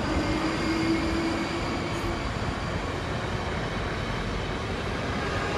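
South Western Railway electric multiple unit pulling away along the platform. Its motor whine rises slightly in pitch and fades out about two seconds in, leaving the steady rumble of wheels on the rails.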